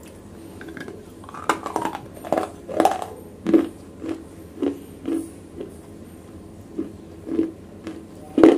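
Close-miked biting and crunching of wet black slate pieces: several sharp, crackly bites a second or two in, then steady chewing crunches about every half second, with a brief pause in the middle and a louder crunch near the end.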